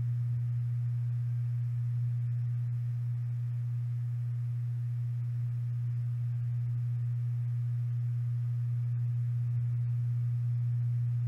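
Steady low electrical hum, one unchanging low-pitched tone, with nothing else heard over it.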